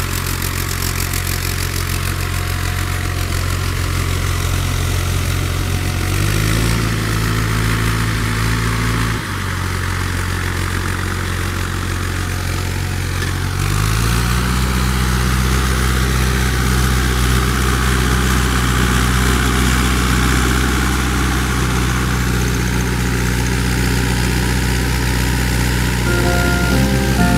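Tractor with steel cage wheels working a flooded rice paddy, its engine running steadily. The engine speeds up about six seconds in, drops back about three seconds later, then picks up again about fourteen seconds in and holds there.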